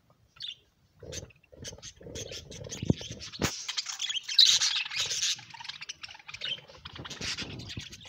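A flock of budgerigars chattering and chirping, starting about a second in and busiest around the middle, with a few sharp knocks among it.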